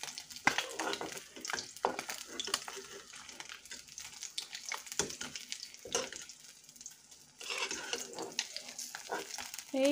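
Fish pieces sizzling in hot oil in a kadai, with a metal spatula scraping and clinking against the pan as the pieces are turned and lifted out.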